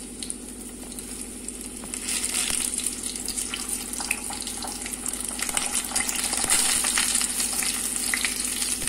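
Boiled potato pieces sizzling and spitting as they shallow-fry in a little oil in a kadhai, with small crackles throughout. The sizzle grows louder about two seconds in as more pieces go into the hot oil.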